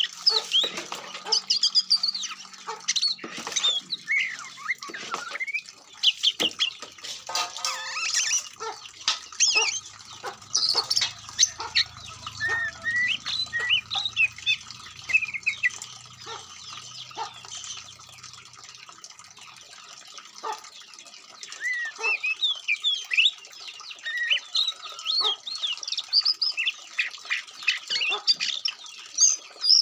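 Oriental magpie-robin singing a fast, varied song of chirps and whistles, with a brief lull a little past the middle.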